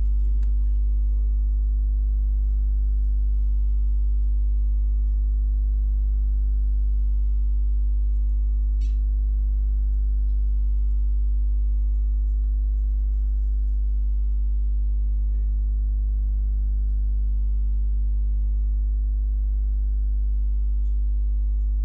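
Steady low electrical mains hum with many overtones, a ground-loop buzz in the recording's audio line, with a few faint clicks over it.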